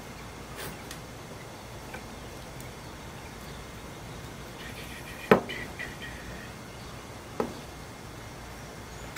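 Two sharp knocks, the louder about five seconds in and a lighter one about two seconds later, from cordless drills and bits being handled and set down on a plywood work table, over a steady faint background.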